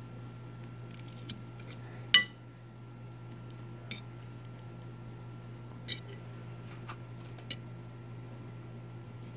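Metal fork clinking and scraping against a ceramic plate while cutting meatballs: a handful of sharp clinks, the loudest about two seconds in with a short ring, over a steady low hum.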